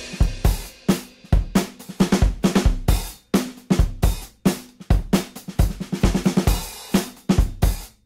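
Background music: a drum kit playing a beat alone, with kick drum, snare and cymbal hits several times a second.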